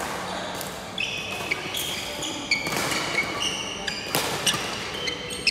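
A badminton rally: rackets strike the shuttlecock with several sharp smacks, and court shoes squeak in short, high chirps on the wooden floor.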